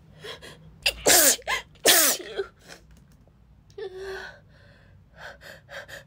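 A woman sneezing twice in quick succession, about a second apart, in a sneezing fit while she is sick, with short gasping in-breaths before them. Near the middle comes a brief vocal sound, then more catching breaths as the next sneeze builds.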